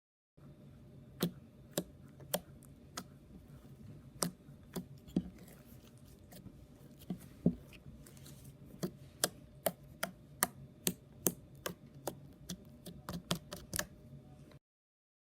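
Slime being squished and poked, giving sharp, irregular clicks and pops that come more often in the second half, over a faint steady hum.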